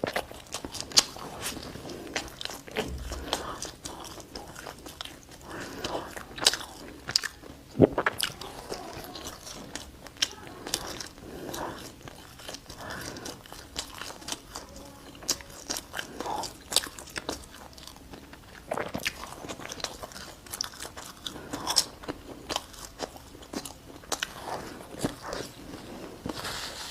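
A person eating close to the microphone: irregular bites and crunches with chewing and mouth clicks throughout, from bread and pastries being eaten.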